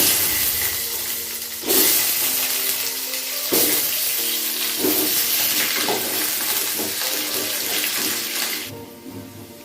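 Potato pieces frying in hot mustard oil in a kadai: a loud sizzle that surges as more pieces go in, about two and about three and a half seconds in, and drops away near the end.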